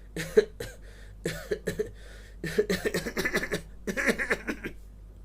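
A man imitating a baby's long paroxysmal coughing fit, the coughs coming closer together near its end, as in the cough of a child needing the remedy Cina.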